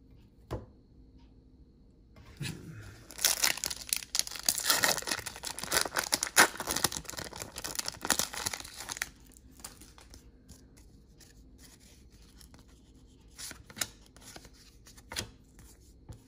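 A trading-card pack wrapper being torn open and crinkled for several seconds, followed by quieter handling of the cards with a few light clicks.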